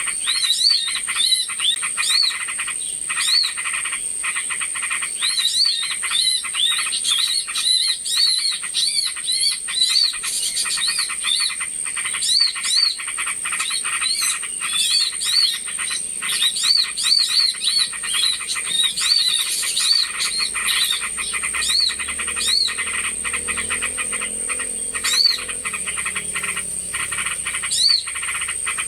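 Bird-lure recording of a busy chorus of small birds: many short, rapid chirps and fast ticking calls over a steady high-pitched buzz.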